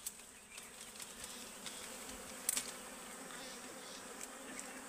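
A mass of wild honeybees buzzing around their exposed comb, a steady low hum, with one sharp click about two and a half seconds in.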